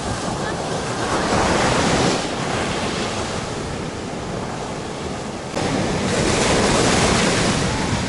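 Sea surf breaking and washing up a sandy beach in a rough sea, a steady rushing wash. It swells about a second in, then again more loudly from about five and a half seconds.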